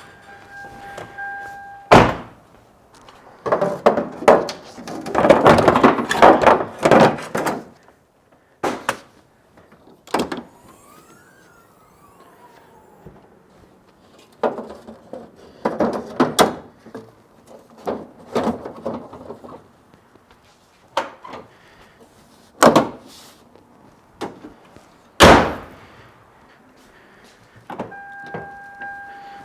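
Irregular knocks and clunks with dense bursts of rattling clatter between them, and several sharp single thuds.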